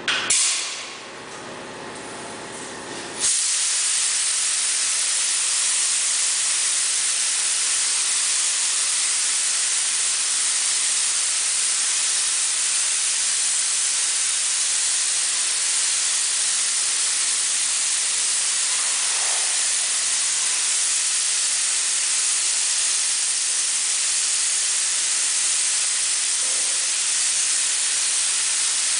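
Compressed-air paint spray gun hissing as it sprays paint onto the side of a car. A short blast comes right at the start, then a steady continuous spray from about three seconds in.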